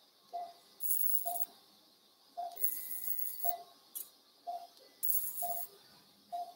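Operating-room patient monitor beeping steadily about once a second, the pulse tone of the anaesthetised dog. Short bursts of hiss come roughly every two seconds and are louder than the beeps.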